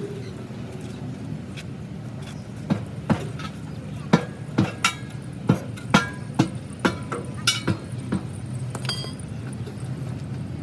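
A series of about a dozen sharp metal knocks and clinks, irregular and about two a second, some ringing briefly, over a steady low engine hum; they stop about eight seconds in.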